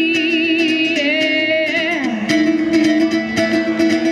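A woman singing over a strummed acoustic guitar. She holds one wavering note for about two seconds, then slides into a lower phrase while the strumming keeps a steady beat.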